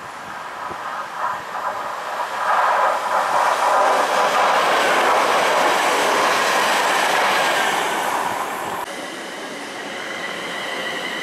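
An AC electric multiple unit passing through a station at speed, its wheels and bogies running loud on the track as it approaches and goes by. About nine seconds in it cuts off suddenly, leaving a steady two-tone high hum with a Class 322 electric unit standing at the platform.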